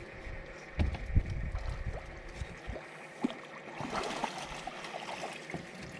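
Striped bass splashing at the boat's side as it is landed with a net, with two heavy thumps about a second in.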